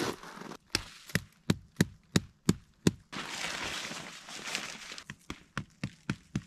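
Tent stake being pounded into frozen ground with a makeshift hammer: seven sharp knocks at about three a second. Then a couple of seconds of rustling, and a run of quicker, lighter taps near the end.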